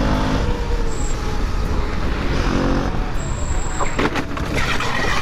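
Motorcycle riding at speed through city traffic: the engine runs under steady wind and road noise, with the sound of surrounding cars and trucks.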